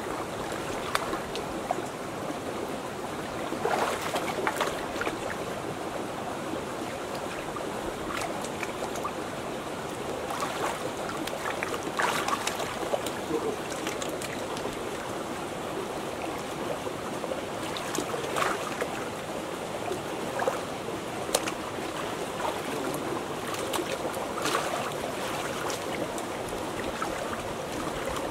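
Stream water running steadily, with occasional splashes and sloshing as people wade chest-deep and reach along the rocks, a sharp splash every few seconds.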